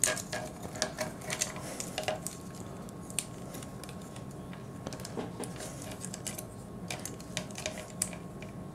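Small plastic parts of an Iron Factory Dubhe transforming robot figure clicking and tapping irregularly as they are handled and pushed together, pegs catching in their holes. A faint steady hum runs underneath.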